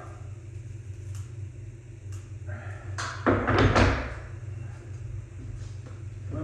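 Hands working a new sandpaper sheet onto the slotted drum of a floor drum sander, with a few light clicks and then a louder scraping rub of the paper against the drum about three seconds in, over a steady low hum.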